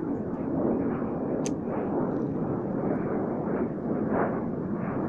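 Wind rumbling and buffeting on the microphone, with one sharp click about one and a half seconds in.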